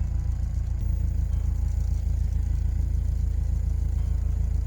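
Bobcat S130 skid steer's diesel engine running steadily at constant speed, a low even rumble.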